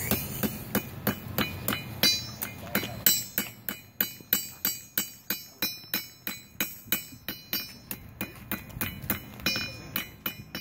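Blacksmith's hand hammer striking hot steel on an anvil while forging a knife blade. The blows come in a steady rhythm of about three a second, each with a short metallic ring.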